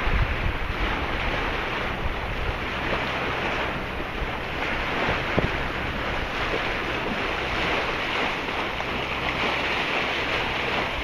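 Wind buffeting the microphone over the rush of water along a sailboat's hull while under way, gustiest near the start, with a single short knock about five seconds in.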